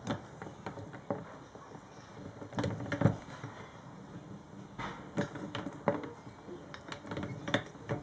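Cast-iron gears and lever linkage of a vintage hand-operated wooden-tub washing machine clicking and clunking irregularly as the mechanism is moved, with a few louder knocks, the loudest about three seconds in.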